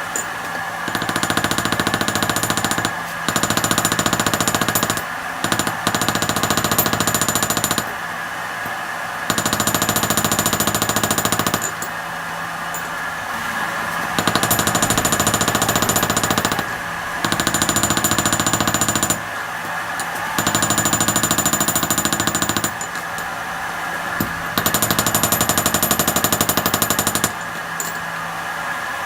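Rapid machine hammering on steel, like a jackhammer, in about eight bursts of two to three seconds each with short pauses between. A steady hum runs underneath.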